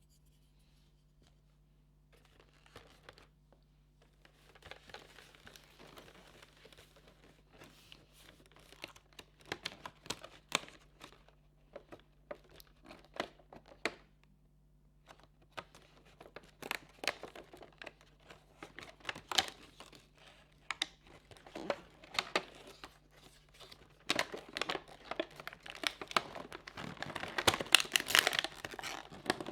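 Cardboard and plastic packaging being handled and torn open, with irregular crinkling and sharp crackles that grow busier and louder near the end.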